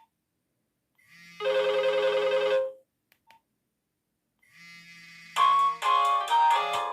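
Nokia 1110i mobile phone playing its built-in tones through its loudspeaker. A single held note swells in about a second in and stops near three seconds. After a pause, another tone starts quietly and breaks into a quick melody of separate notes near the end.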